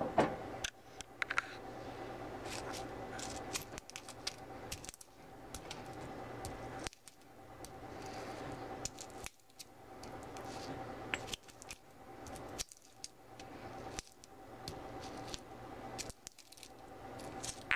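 Stone pestle pressing and grinding green cardamom pods in a stone mortar, with scattered sharp clicks and crackles of stone on stone and the pods cracking open.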